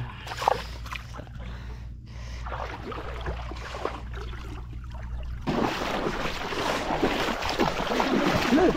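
Shallow seawater sloshing and splashing around wading legs, with a low wind rumble on the microphone. About five and a half seconds in, the splashing grows louder and fuller as a hand reaches down into the water.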